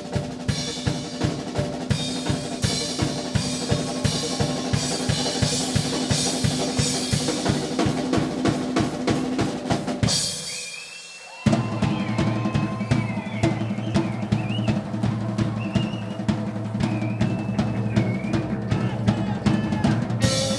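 Rock drum kit solo, with kick, snare and cymbals struck in a steady, fast pattern of about four hits a second. About ten seconds in, the drums stop and the sound dies away for a moment. The full band then comes back in with drums and electric guitars.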